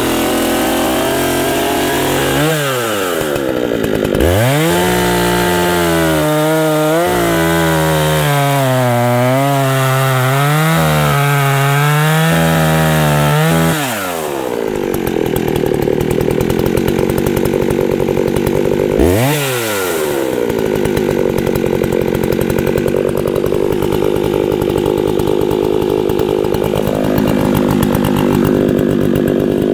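Old Solo 650 VA two-stroke chainsaw, fitted with a new Dolmar centrifugal clutch, revving and then cutting into a small ash tree under load. Its pitch rises and falls with the throttle, then turns rougher and steadier after about fourteen seconds, with one short rev near nineteen seconds. The saw pulls through well and the clutch does not slip.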